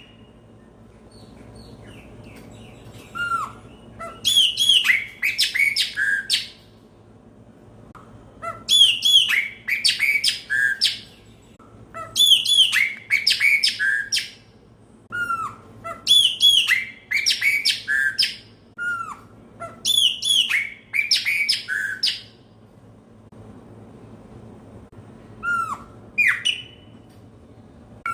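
Chopi blackbird (pássaro-preto) singing in loud, repeated phrases, about six of them with short pauses between. Each phrase opens with a low down-slurred whistle and runs into a quick string of clear, bright notes.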